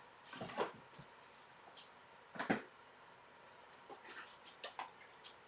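Faint knocks and clatters of objects being handled and set down, in a few short clusters.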